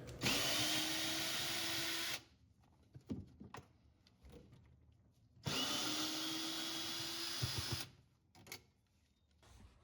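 Power drill with a 10 mm socket on a hex adapter running twice, about two seconds each time, as it backs out the two top bolts holding a portable washing machine's clutch assembly. Small clicks and knocks fall between the two runs.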